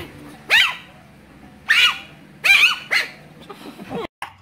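Chihuahua puppy yipping: four short, high-pitched barks, each rising and falling in pitch, with the last two close together.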